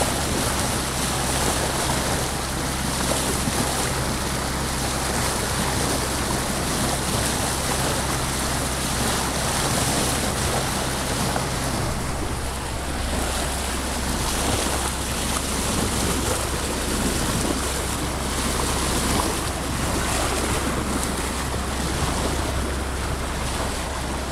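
Bow wave of a sailing yacht under way, water rushing along the hull, with wind on the microphone and a steady low hum underneath.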